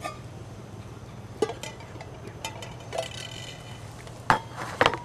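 Stainless steel mess kit pot handled and set down on concrete: several light clinks and knocks, one with a short metallic ring about three seconds in and the loudest knocks near the end, over a low steady hum.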